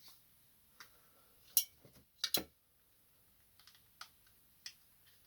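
Scattered sharp clicks and light knocks of a plastic laser printer toner cartridge being handled and put back together, the loudest coming about a second and a half and two and a half seconds in.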